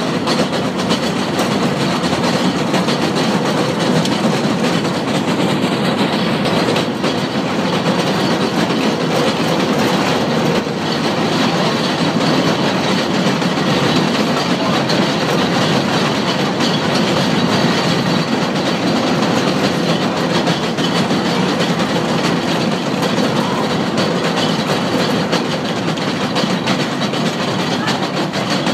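Rack-railway railcar running steadily over a cog-rail section: continuous rumble and rattle of the wheels and the cog wheel on the rack, with a faint steady whine and light clicks.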